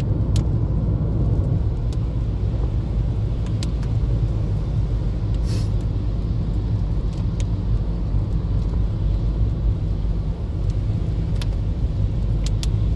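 Steady low rumble of a car's engine and tyres on a wet road, heard from inside the cabin, with a few light ticks scattered through it.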